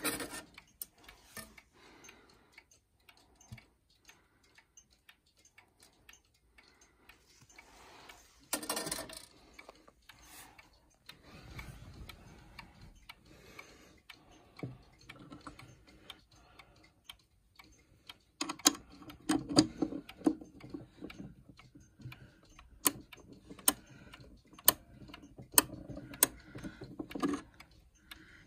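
Brass movement of a 31-day pendulum wall clock ticking steadily from its escapement, a little more than one tick a second, plainest in the second half. Two short, louder noises break in, one right at the start and one about nine seconds in.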